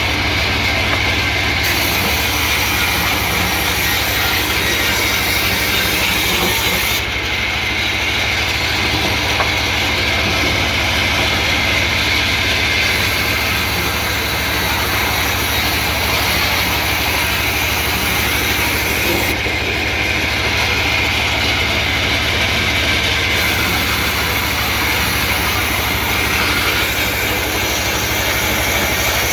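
Sawmill machinery running steadily: a constant low engine drone under a high, hissing saw noise that swells and eases a few times.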